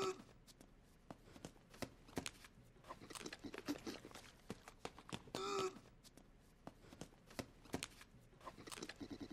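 Faint scattered clicks and light taps, with two short vocal sounds, one at the very start and one about five and a half seconds in. Just before the end a fast, even pulsing starts.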